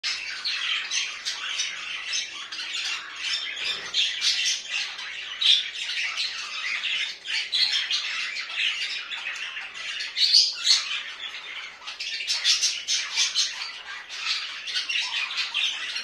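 A flock of budgerigars chattering and squawking without a break, with many short chirps and warbles overlapping one another.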